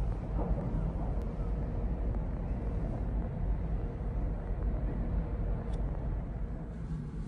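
Steady low rumble of a ferry underway, with a faint steady hum over it.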